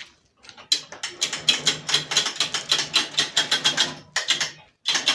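Homemade irrigation hose reel, built from an old washing machine, turning with a rapid mechanical clicking: a long run of it, then two short bursts near the end.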